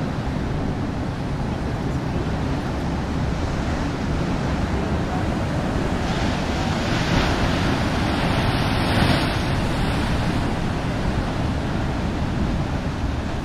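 Wind rushing and buffeting the microphone over the wash of ocean surf, swelling louder for a few seconds about halfway through.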